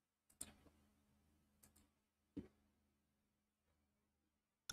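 Near silence: faint room tone with three faint computer clicks.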